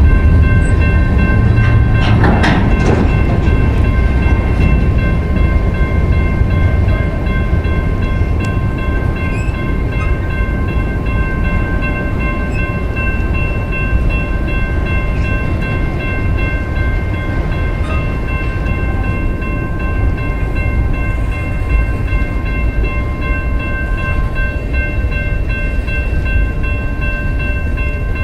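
Train cars rolling past on the rails with a steady low rumble, easing off slightly over time. There is a louder clatter about two seconds in, and thin steady high-pitched tones ring throughout.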